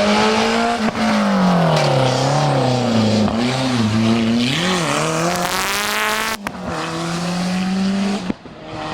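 Historic rally car engine at high revs on a special stage: the pitch climbs, drops back as it comes off the throttle and changes gear, wavers up and down through a corner, and then climbs sharply. The sound breaks off abruptly about six seconds in and goes on as an engine held at steady high revs.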